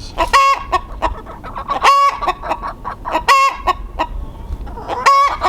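Chicken hens clucking, with one loud, short squawking call repeated four times, about every one and a half seconds.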